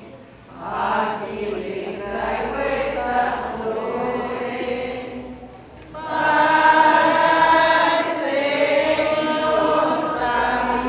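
Several voices singing together, choir-style, in two long phrases: a dip about five and a half seconds in, then a louder second phrase from about six seconds in.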